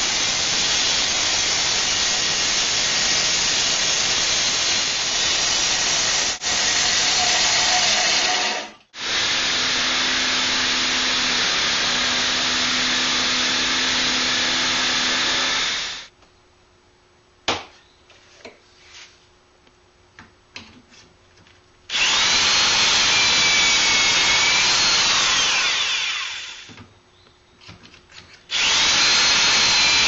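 Table saw cutting wood in two runs, with a brief stop about nine seconds in. After a quiet stretch of clicks as a board is clamped into a pocket-hole jig, a corded drill with a stepped pocket-hole bit bores twice into the board, its motor whine rising and falling in pitch.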